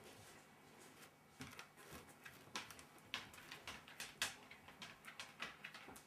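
Shelties' claws clicking faintly and irregularly on a wooden floor as the dogs walk about, in a scatter of light ticks.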